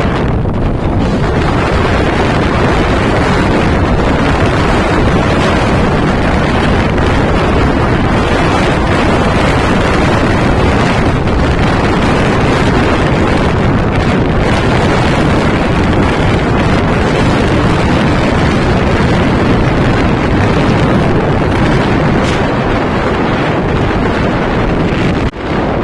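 Strong wind buffeting the microphone: a loud, steady rushing noise with deep rumble.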